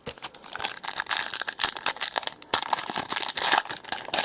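A trading-card pack wrapper being torn open and crinkled by hand: a dense, continuous crackle with many sharp ticks, starting suddenly.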